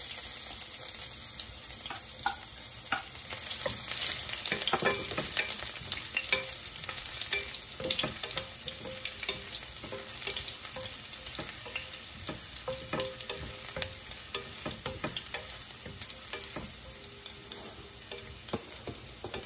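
Chopped garlic sizzling in hot olive oil in a stainless steel pan, stirred with a wooden spoon that scrapes and taps against the pan with many short ticks.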